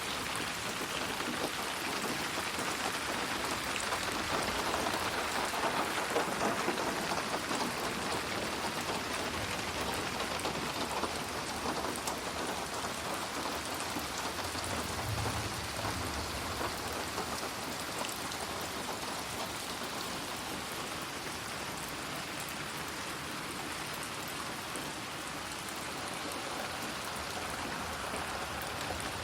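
Steady rain falling as a dense, even hiss of drops, a little louder a few seconds in, with a brief low rumble about halfway through. It is mixed as 8D audio, moving around the listener's head.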